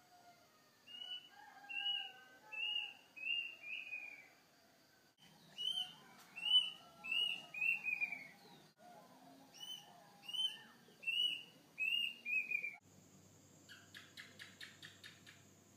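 Birds calling: a bird repeats series of four to six short, falling whistled notes, with softer, lower calls from other birds behind. Near the end this gives way to a steady high-pitched drone with a quick run of about half a dozen pulses.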